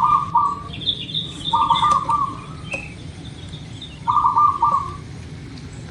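Zebra dove (perkutut) singing: three short, rapid rolling coo phrases, a couple of seconds apart. Fainter high chirps from smaller birds sound in between.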